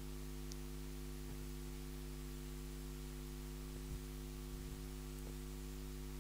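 Steady low electrical hum with a faint hiss underneath, mains hum picked up by the recording.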